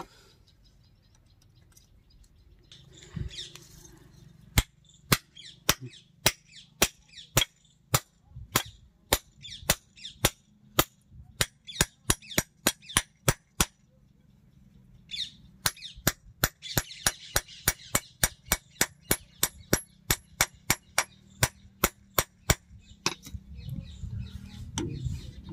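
Steel hammer blows on a thresher shaft's ball bearing and its flanged cast housing, about two sharp metallic strikes a second. After a short pause a little past the middle comes a faster run of about three strikes a second, as the bearing is knocked into its seat.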